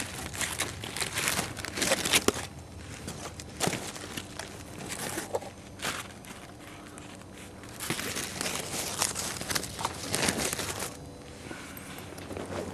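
Aerosol spray-paint can hissing in long bursts onto the side of a freight car, with short crunches of footsteps on gravel track ballast in between.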